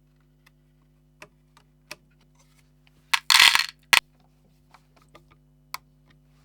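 Light clicks and clinks of small hard objects being handled, with a loud, short rattle about three seconds in and a sharp click right after it.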